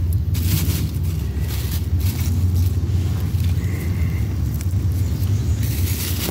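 Steady low rumble in the background, with brief rustling as leaves and garden mulch are handled close to the microphone.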